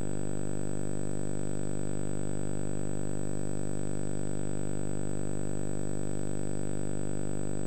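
Steady electrical hum on the VHS tape's audio, a low buzz with many overtones and a thin high-pitched whine above it, unchanging throughout with no other sound.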